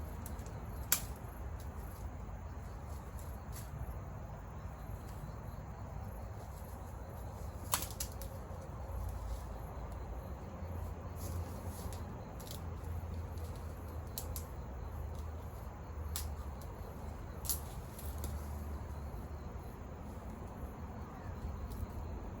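Wood campfire burning: a steady low rush with a handful of sharp crackles and pops scattered through it.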